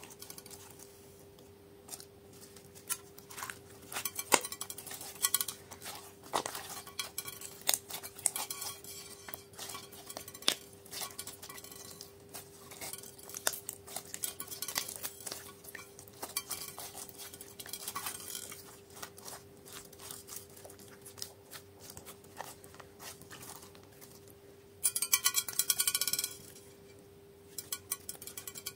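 Slime being worked and mixed with add-ins in a glass tray: an irregular string of small clicks, crackles and clinks. There is a denser stretch of crackling about 25 seconds in.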